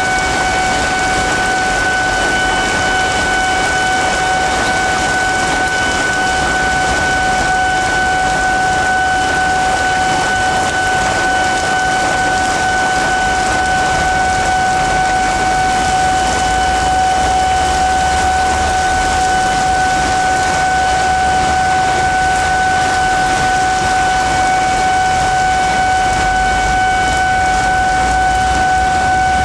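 Heavy rain hissing, with a level-crossing warning alarm sounding a steady high tone and a low rumble underneath that swells and fades.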